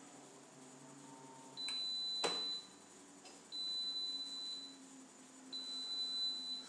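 Electrolux Eco Turbo washing machine beeping three times, each beep a steady high tone about a second long, with a sharp click during the first. This is the machine's end-of-cycle signal, for a cycle that has stopped early without spinning.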